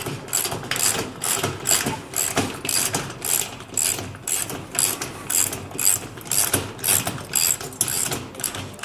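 19mm socket ratchet worked back and forth to tighten the nut on a cart axle bolt: a quick run of ratcheting clicks on each back-swing, about three a second, stopping near the end.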